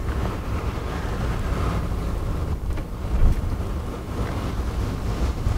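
Wind rumbling over the microphone, with steady road and vehicle noise from a moving truck.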